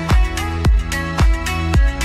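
Background electronic music: sustained synth chords over a steady kick-drum beat, about two beats a second.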